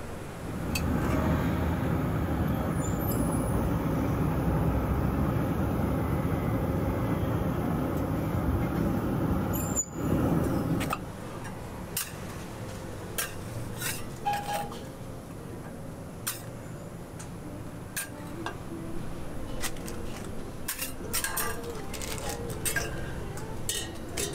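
A steady loud rushing noise for about the first ten seconds, which cuts off abruptly. After it, a metal spatula clinks, taps and scrapes on a flat iron crepe griddle in a string of short sharp knocks as a jianbing is cut and lifted.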